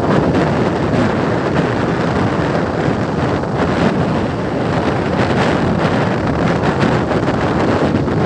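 Steady wind buffeting the microphone of a moving vehicle, with vehicle and road noise underneath.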